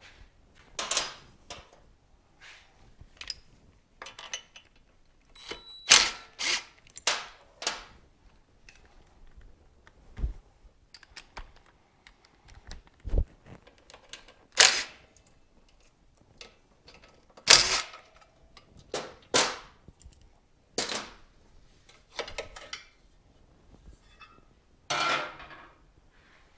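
Metal tools and parts being handled during a motorcycle disassembly: a string of irregular clanks and knocks, some ringing briefly.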